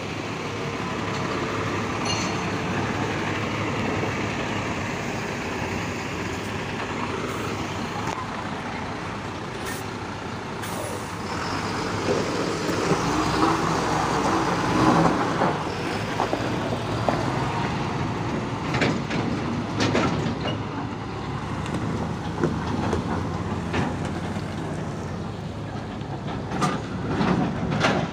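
Heavy truck's diesel engine running close by as the truck creeps forward, with scattered knocks and clanks in the second half.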